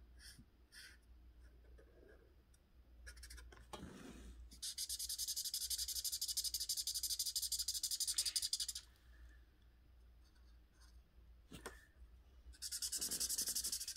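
Felt-tip marker rubbed rapidly back and forth on paper, coloring in part of a drawing. A long stretch of about four seconds starts about a third of the way in, and a shorter stretch comes near the end.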